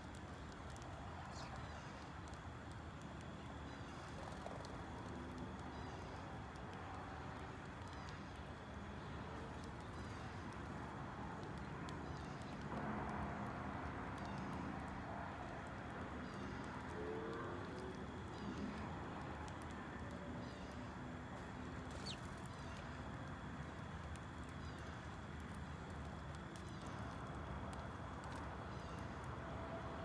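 Outdoor background hiss and hum, with house sparrows giving short, soft chirps over and over and small taps of birds pecking seed off concrete. A louder rush of noise swells up about thirteen seconds in.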